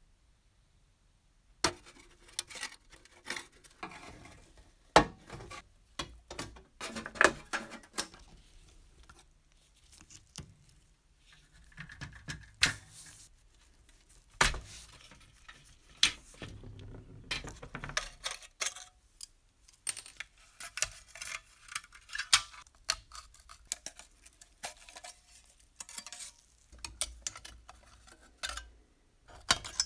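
Light metal clinks, knocks and scrapes from small tin-plate parts of an old rusty toy truck being handled and taken apart, starting after a short silence and coming in irregular clusters.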